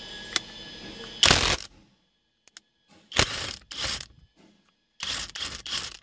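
Impact wrench hammering in six short bursts, one, then two, then three in quick succession, loosening the nut that holds a steering wheel to its column.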